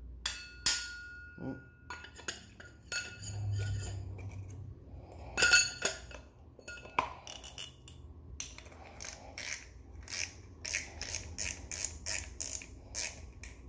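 Large Daiwa Tournament 18000 spinning reel being handled. Its metal spool and body clink and knock, the loudest knock about five seconds in. From about seven seconds on comes a steady run of clicks, roughly three a second, as the spool is turned by hand.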